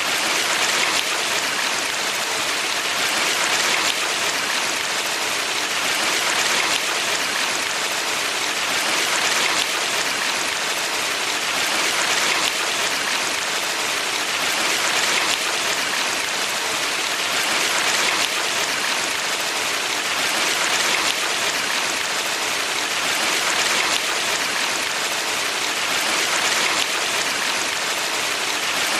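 Valley stream water flowing, a steady rush that swells slightly every few seconds.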